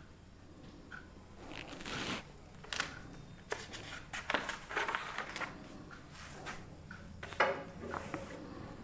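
Objects being handled and moved about: an irregular string of short rustles and knocks, the sharpest about three quarters of the way through.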